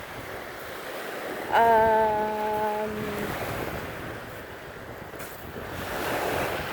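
Lake Erie waves washing against a rocky shore, with wind on the microphone. About a second and a half in, a single steady pitched tone, like a hum, is held for under two seconds over the surf.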